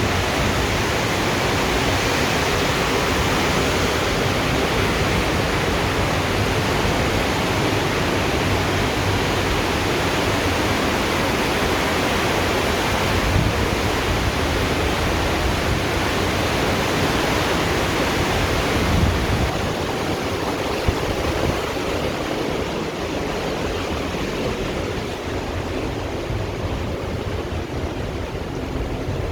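Steady, loud rushing of wind buffeting the microphone together with the sea churning in the wake, on the open stern deck of a moving cruise ship; it eases a little over the last third.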